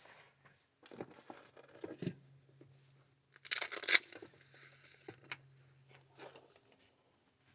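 Rustling and crinkling handling noises with a few light knocks, loudest in a burst about three and a half seconds in, over a faint steady low hum.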